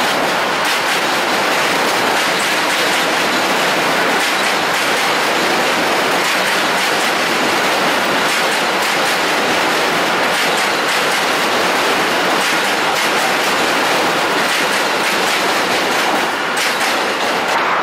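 New York City Subway J train of R179 cars passing at close range, a loud steady rush of steel wheels on rail with irregular clacks as the wheels cross rail joints.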